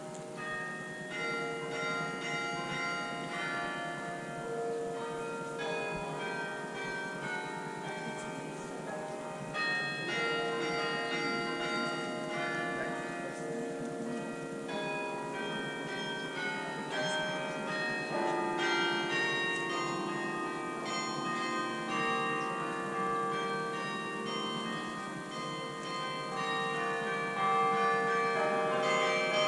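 The Bok Tower carillon playing a melody: many tuned bronze bells struck in chords and runs, each note ringing on with long overtones.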